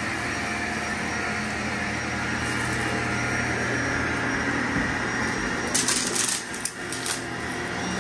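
Vacuum cleaner running steadily with a constant motor hum as it is pushed over the floor. A little before the end comes a short cluster of sharp, crackling rattles.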